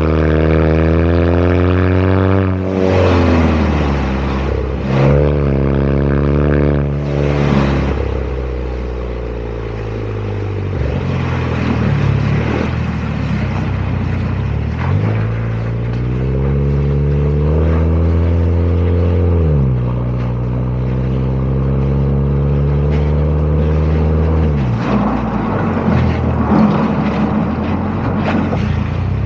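Exhaust of a Chevrolet Malibu with a variable-valve full exhaust system and dual black square tips, heard while driving. The engine note climbs under acceleration and drops at each gear change: three quick pulls in the first several seconds, steadier cruising, then another long climb that falls away, and a rise again near the end.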